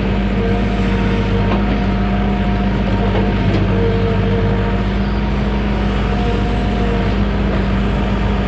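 Excavator's diesel engine running steadily under work, with a higher whine that comes and goes every second or two.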